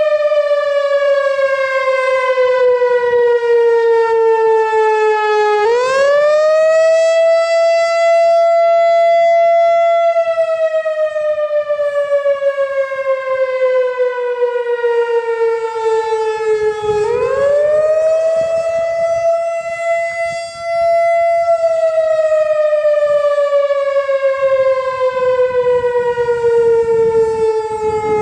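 Analog Whelen WPS-4004 electronic outdoor warning siren sounding its wail test signal. A single loud tone with strong overtones slides slowly down in pitch, sweeps quickly back up, holds briefly, then slides down again, twice over.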